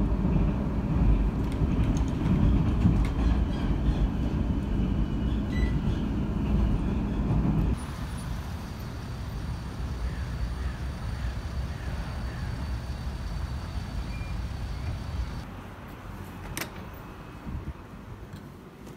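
Steady low rumble of a train running on rails, heard from inside the carriage, cutting off about eight seconds in. City street traffic noise follows, then quieter indoor ambience with a single sharp click near the end.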